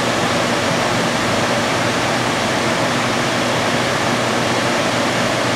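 Lampworking bench torch flame burning with a steady, even hiss.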